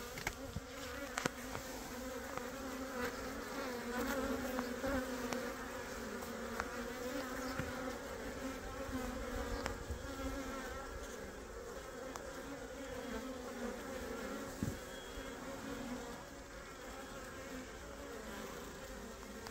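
A swarm of Korean native honeybees (Asian honeybee, Apis cerana) buzzing in a steady low hum as the swarm settles into its cluster.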